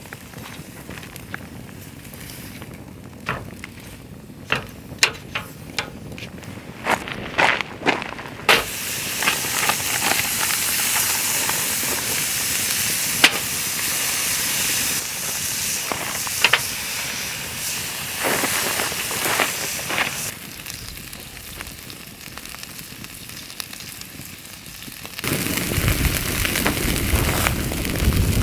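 Open wood fire crackling with sharp pops, then a steady high hiss of beef ribs sizzling over the fire. Near the end a louder, fuller rush of burning fire comes in.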